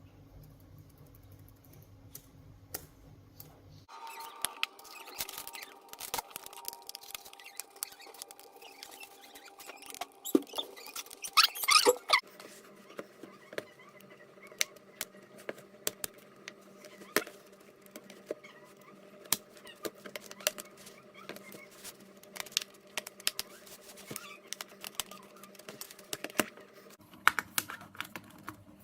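Small sharp clicks, taps and scrapes of a laptop's plastic case and parts being handled during a RAM swap, with a louder scraping burst a little before halfway.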